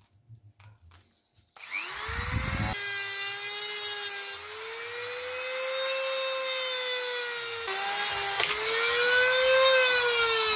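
Small electric cutting tool with a thin cut-off disc spinning up about one and a half seconds in and cutting into a rusted bayonet scabbard, its whine rising and falling in pitch with the load. A sharp crack about eight and a half seconds in, near when the thin disc breaks apart, and the whine falls away near the end.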